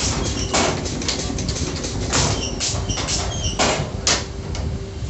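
Automatic frame pinning machine (underpinner) working a moulding corner: a run of sharp clacks and short bursts of hiss, about six in a few seconds at uneven intervals, over a low steady hum.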